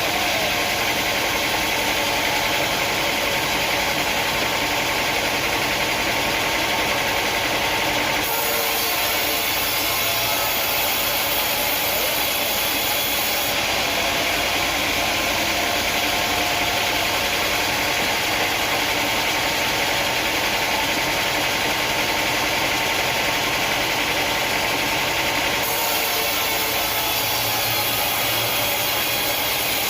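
Sawmill machinery running steadily with a loud hiss, its character changing abruptly a few times.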